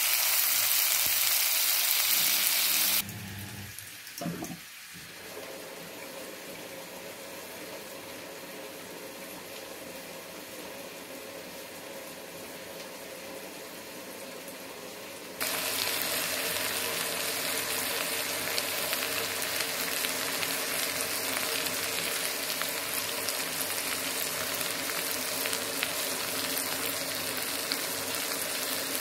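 Prawns sizzling as they fry in oil in a pan. About three seconds in the sizzle cuts off to a quieter steady background with a soft knock or two, and it comes back loud about halfway through.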